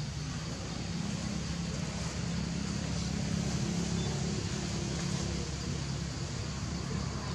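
A steady low mechanical rumble, like a running motor, with a faint high hiss above it.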